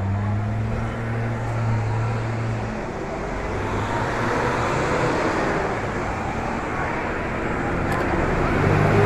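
Vehicle engines running and road traffic noise, with a low steady engine hum through the first three seconds.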